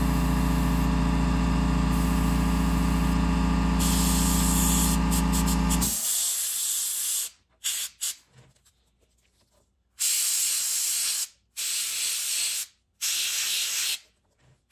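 Airbrush spraying paint in a steady hiss over a motor's low hum. About six seconds in the hum stops abruptly; the hiss runs on briefly, and after a pause comes back in three short bursts of about a second each.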